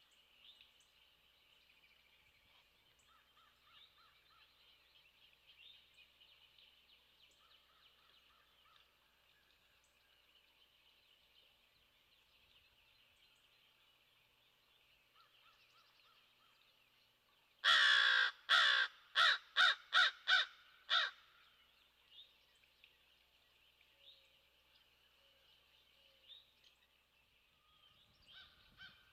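A corvid cawing: a quick run of about seven loud, harsh caws over some three seconds, more than halfway through, above a faint steady high-pitched background.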